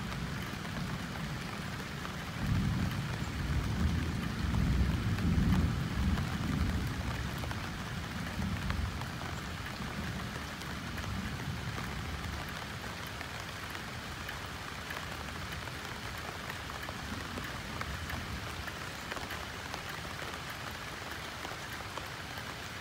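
Steady rain pattering on banana leaves. A low rumble swells in the first third, then fades back into the rain.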